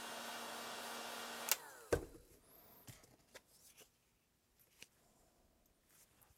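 Milwaukee cordless heat gun blowing with a steady hum while shrinking heat-shrink tubing, switched off about a second and a half in, its fan winding down with a falling whine. A knock follows, then faint handling clicks.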